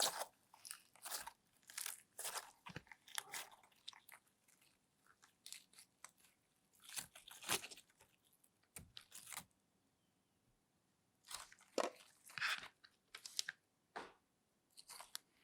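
Slime being squeezed and poked by hand, giving irregular crunchy crackles and clicks in clusters with short pauses.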